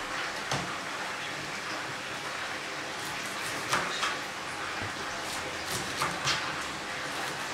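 Kitchen knife chopping lettuce on a plastic cutting board: scattered sharp knocks of the blade on the board, one about half a second in and then two pairs later on.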